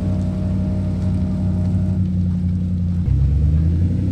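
Jeep Wrangler's engine running at low speed, a steady low rumble; about three seconds in, its note changes abruptly and gets a little louder.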